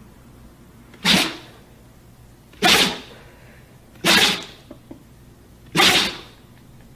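A dog sneezing four times, about one sneeze every one and a half seconds, each short and sharp.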